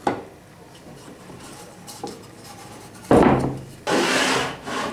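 Wooden bars of a homemade clamping jig being slid and fitted along its metal rods. A sharp knock comes at the start, and from about three seconds in there are loud scraping slides of wood against metal, two long ones and a short one near the end.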